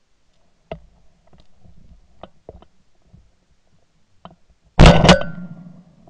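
Two shotgun shots in quick succession, about a third of a second apart, fired at a hen capercaillie, each a loud sharp report that fades off. Before them, a few faint snaps and clicks, as of twigs or footsteps.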